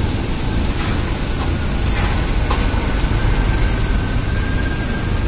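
Steady low engine rumble on a car ferry's vehicle deck as cars and a motorbike drive off over the ramp, with two sharp clanks about two seconds in.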